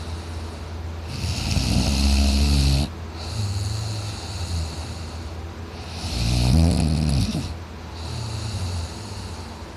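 A man snoring loudly in deep sleep: two breath cycles, each a loud snore about two seconds long followed by a quieter one.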